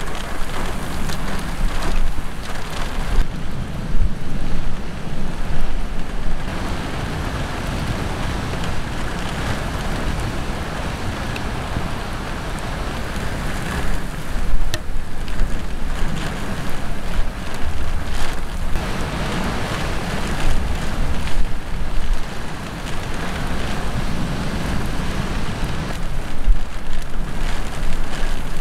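Thunderstorm rain falling steadily while strong storm gusts buffet the microphone, the gusts swelling and easing every few seconds.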